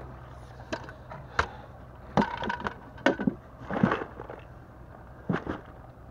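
Knocks and clatter of fishing gear and a tackle bag being handled and set down in a boat, in several separate short hits, over a low steady hum.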